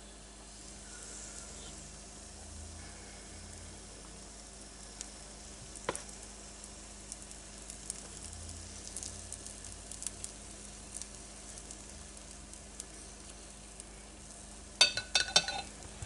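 Waffle batter sizzling as it is spooned onto a hot electric waffle iron sprayed with cooking spray: a steady hiss, with small scrapes and taps of the spoon and spatula. A quick run of sharp clinks near the end, a spoon against the glass mixing bowl.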